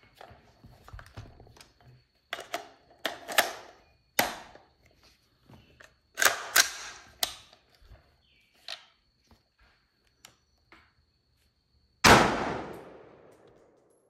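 AR-15 rifle (Colt SOCOM with Colt carrier and Microbest bolt): a run of sharp metallic clacks of handling and loading, then a single gunshot near the end with a long fading echo.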